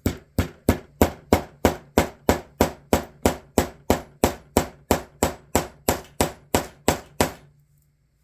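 Small hammer tapping metal on metal on a small anvil, setting a small rivet through leather: a steady run of even blows, about three a second, that stops about seven seconds in.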